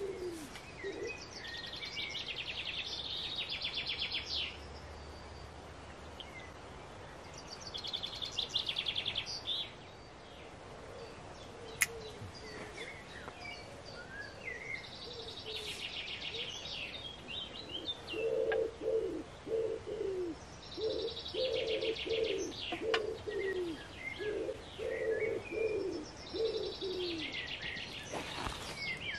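Woodland birdsong. A songbird repeats a short, high trilled phrase five times, about every six seconds. A pigeon coos at the very start and again in a long run of low coos through the second half.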